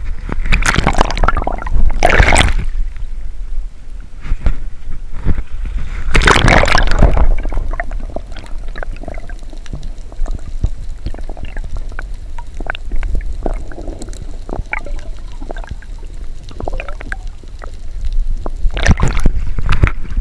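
Seawater sloshing and splashing around a camera as it is dipped in and out of the water, with loud surges near the start, about six seconds in and near the end. In between comes muffled underwater gurgling and crackling from bubbles.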